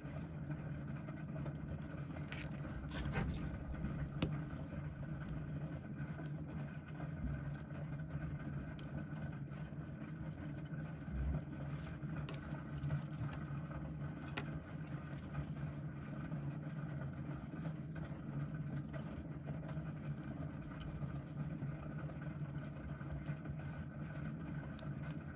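Steady low electrical hum and hiss of the boosted room sound, with a few faint clicks and light metallic rattles of small tools and parts being handled at a watchmaker's bench.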